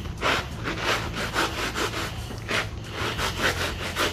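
Kitty litter being ground under shoe soles on a concrete floor, rubbed back and forth into spilled motor oil: repeated gritty scraping strokes at about two a second.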